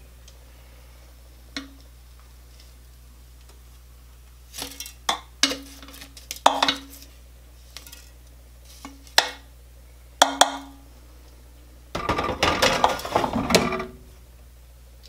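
Kitchen tongs clicking and knocking against a nonstick air fryer basket as baked potatoes are turned over halfway through cooking, in a handful of separate taps, some with a brief ring. Near the end comes a longer rattling clatter as the basket is slid back into the air fryer.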